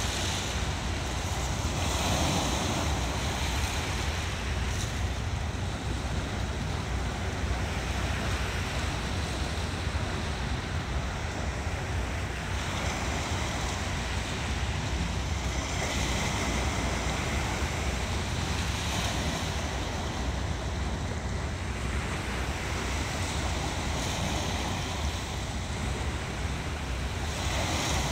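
Small sea waves breaking and washing over shoreline rocks, swelling every few seconds, over a steady low wind rumble on the microphone.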